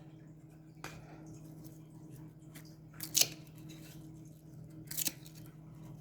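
Trading cards being handled and slid against each other as a pack is sorted, with a faint click about a second in and two short, sharp rustles about three and five seconds in, over a faint steady hum.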